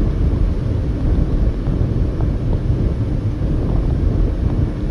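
Steady low rumble of a car driving at highway speed: road and tyre noise with the engine running underneath, unchanging throughout.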